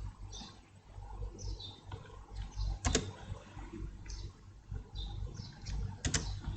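Computer mouse clicking, with two sharp double clicks about three seconds and six seconds in, over a low steady electrical hum.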